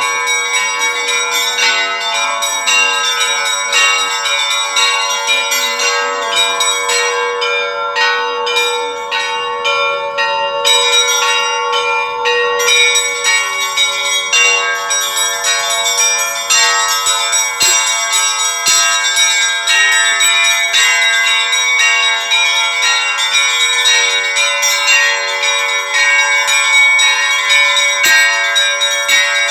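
Russian Orthodox church bells ringing a continuous peal: several bells struck in quick succession over the lingering hum of their sustained tones.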